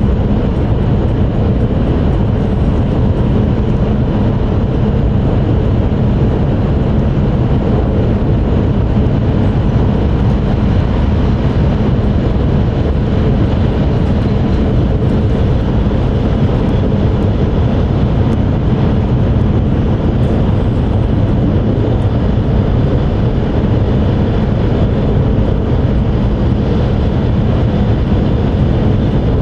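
Cabin noise inside an E5 series Shinkansen car cruising between stations: a loud, steady low rumble with a rushing hiss above it, unchanging throughout.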